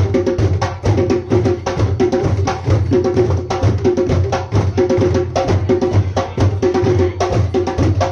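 Music with fast, busy drumming over a steady bass line.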